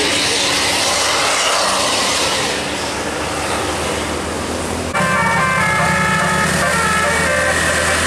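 Tour bus engine and road noise as the bus pulls away; then, from an abrupt change about five seconds in, a musical multi-tone air horn ('telolet') playing a quick tune of short stepped notes over a running engine.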